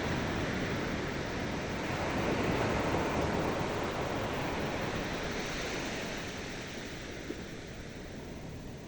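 Ocean surf: waves washing in as a steady rush that swells about two seconds in, then slowly dies away as the wave recedes.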